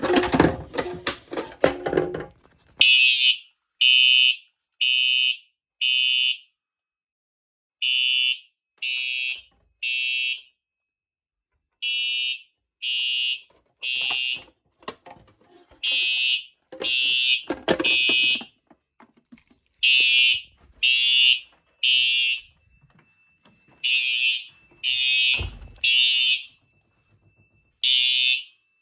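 Simplex TrueAlert fire alarm horns sounding in the temporal-3 evacuation pattern: groups of three short, loud blasts about a second apart, with a pause between groups, repeating. At the start there is a clatter as a pull station is operated to set off the alarm, and there are a few knocks between the blasts.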